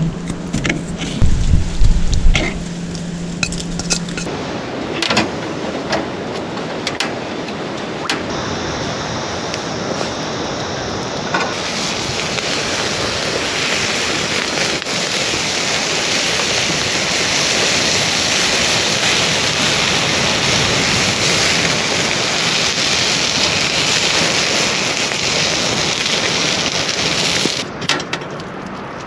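Fish grilling in a wire basket over a wood campfire, a steady rain-like sizzling hiss that builds about twelve seconds in and cuts off suddenly near the end. Before it come a few knocks of a knife on a cutting board.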